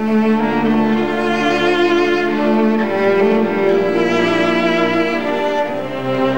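Background music of bowed strings, cello and violin, playing slow, long-held notes with a slight vibrato.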